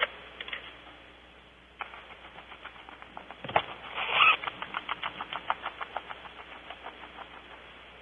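A rapid series of sharp clicks, about five or six a second, with a louder scratchy burst near the middle, then slowly fading away toward the end.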